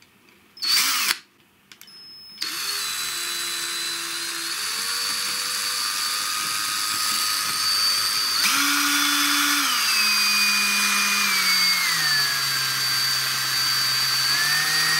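Cordless drill spinning the input shaft of a rebuilt speedometer head in place of the speedometer cable, to test it. It gives two short blips, then runs steadily from about two and a half seconds in, its speed stepping up and down a few times.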